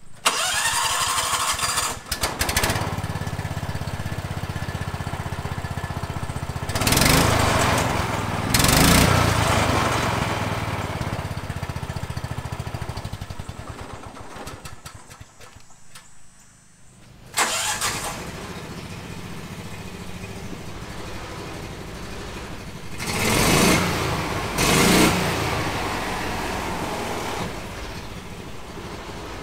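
Subaru Robin EX27 9 hp single-cylinder engine of a utility buggy started and idling, revved twice, fading away after about 14 seconds; first through its original short exhaust under the bed. It then starts again and idles, revved twice more, through a 2.5-inch exhaust pipe with a motorcycle baffle.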